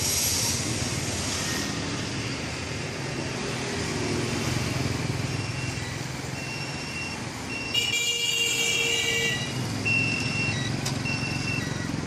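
Steady street traffic noise, with a high-pitched tone lasting about a second and a half just past the middle and a few short high beeps around it.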